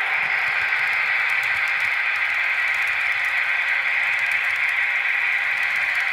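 H0-scale model freight trains running on the layout: a steady whirring of locomotive motors and metal wheels on the track, with light clicking over rail joints.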